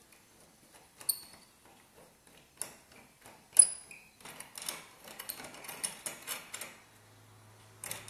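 Metal lock-picking tools clicking and rattling in a BMW car door lock cylinder: a few separate sharp clicks, the loudest ringing briefly, then a quick run of light clicks about two thirds of the way through.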